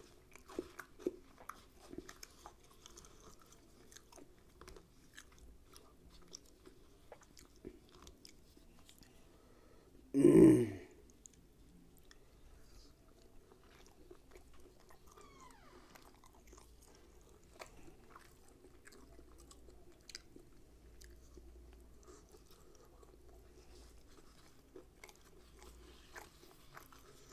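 A person quietly chewing rumali roti and mutton tikia: small wet mouth clicks and smacks scattered throughout, with soft tearing of the thin bread, over a faint steady hum. One brief, loud vocal sound from the eater about ten seconds in.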